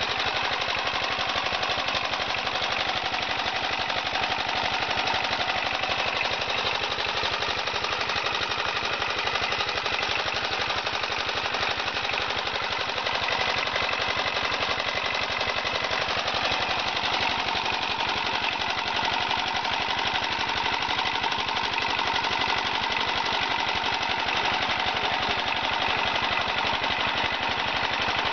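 Small charcoal-processing machine running steadily, with a fast, even knocking.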